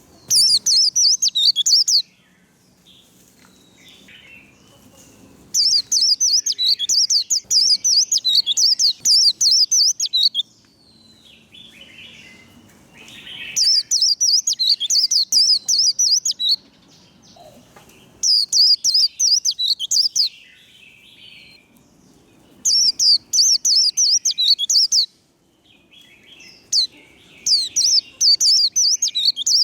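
A white-eye (vành khuyên) singing its rapid twittering 'líu' song in six loud bouts of about two to four seconds each, separated by short pauses filled with softer chatter.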